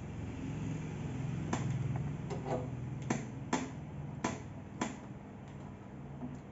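A series of about six sharp clicks, roughly two a second, from metal parts and a tool being worked while bolting together a belt sander, over low handling rustle.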